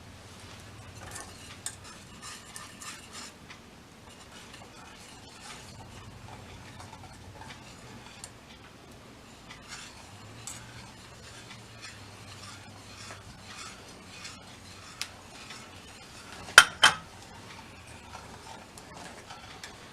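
Wire whisk stirring Parmesan into a pan of cream sauce: soft scraping and small metal ticks against the pan, with two louder clinks a few seconds before the end.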